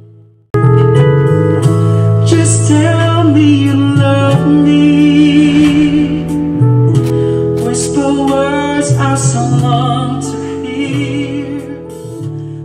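Music cuts in abruptly after a brief silence about half a second in, with held notes under a wavering melody. It grows softer near the end.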